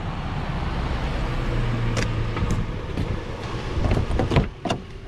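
Nissan Xterra SUV driving up: engine running and tyres rolling on asphalt in a steady rumble. About four seconds in come a few sharp clicks and knocks as the door handle is pulled and the latch opens.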